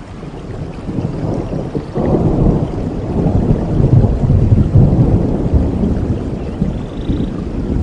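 Thunder rumbling over steady rain: the rumble swells sharply about two seconds in, is loudest around the middle and then slowly eases.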